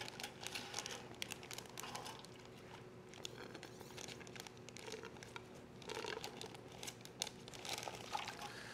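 Faint crinkling of a plastic poultry shrink bag as a bagged whole chicken is dipped and turned in a stockpot of hot water, the bag shrinking down around the bird; irregular small crackles throughout.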